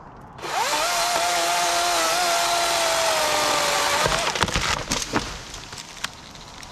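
Chainsaw revs up about half a second in, runs at high throttle for several seconds while cutting, then lets off, followed by a series of sharp cracks and snaps.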